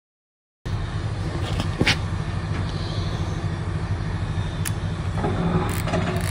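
About half a second of silence, then a steady low outdoor rumble with a few short, sharp clicks.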